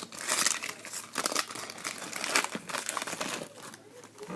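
Baseball card pack wrappers crinkling in irregular bursts as packs are handled and opened by hand, dying down near the end.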